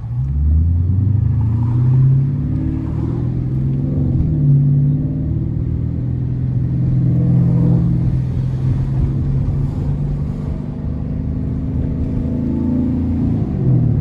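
Dodge R/T's 5.7-litre Hemi V8 under way. Its engine note climbs in the first couple of seconds as the car accelerates, rises and falls through the middle, and dips near the end before picking up again.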